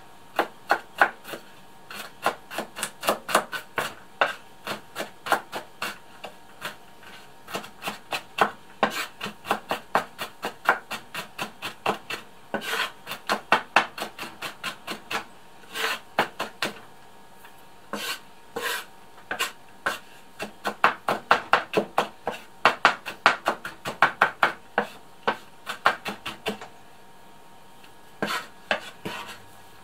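Chef's knife mincing garlic on a wooden cutting board: quick knocks of the blade against the board, about four a second, pausing twice briefly.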